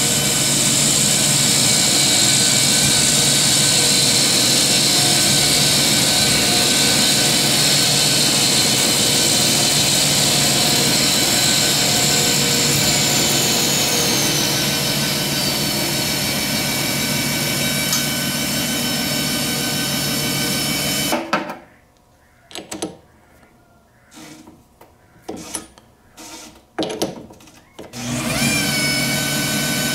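Metal lathe spinning a 6061 aluminium workpiece, running with a steady high whine that slides lower in pitch about halfway through. The lathe stops suddenly about two-thirds of the way in, leaving a few clicks and knocks, then starts up again near the end with a rising whine.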